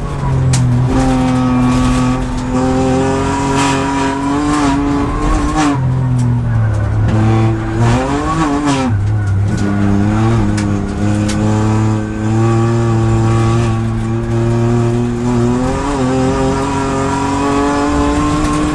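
Kia Picanto GT Cup race car's 1.0-litre turbo three-cylinder engine heard from inside the cabin at racing speed. The engine note drops about six seconds in as the car brakes for a corner, wavers through the downshifts, then climbs again under acceleration, with another gear change near the end.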